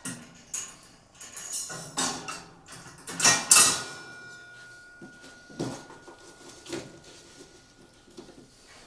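Metal clinks, knocks and scrapes as tools and parts are handled on a steel carrier frame, in a string of separate strokes. The loudest is a longer scraping clatter about three and a half seconds in, after which a faint steady ringing tone hangs on.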